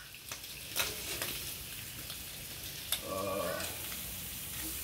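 Bacon frying on a barbecue: a steady sizzle with sharp crackles and pops of spitting fat.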